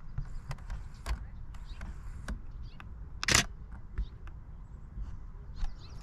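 Camera shutter firing in a short rapid burst about three seconds in, among scattered faint clicks of the camera being handled, over a low rumble.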